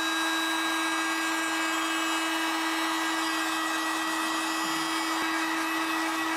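Heat gun's fan motor running at a steady, even whine.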